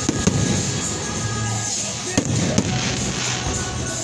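Fireworks shells bursting overhead: several sharp bangs, two right at the start and two more about halfway through, with music playing throughout.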